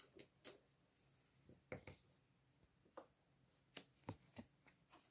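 Near silence: room tone with a few faint, scattered taps and clicks of hands handling small objects on a desk, a little busier near the end.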